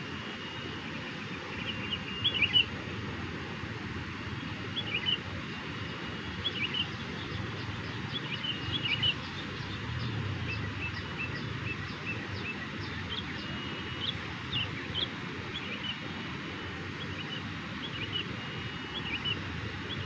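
Sooty-headed bulbul calling in short chirped phrases every second or two, the loudest a little over two seconds in, over a steady low rumble.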